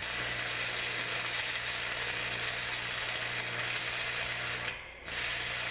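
MIG welding arc running as a steady hiss with a low electrical hum, briefly weakening shortly before the end.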